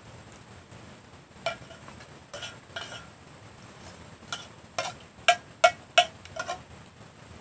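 Metal spoon clinking and scraping against the inside of a metal cooking pot while scooping out food: a string of sharp, ringing clinks, the loudest three in quick succession about two-thirds of the way through.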